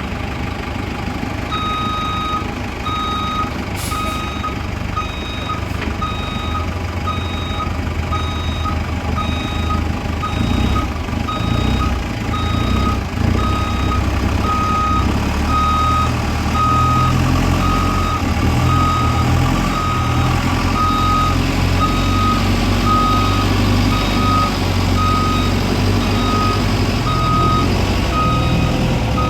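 A heavy diesel vehicle's reverse alarm beeping at an even pace over its engine, which works harder from about a quarter of the way in and again from about halfway, as the machine strains in deep mud.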